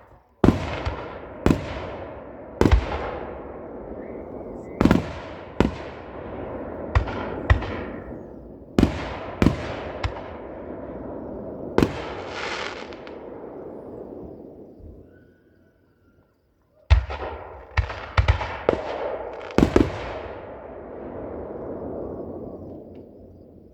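Fireworks display: aerial shells bursting with sharp booms every second or so, with crackling between them. After a brief silence about two thirds of the way in, a quick cluster of bangs.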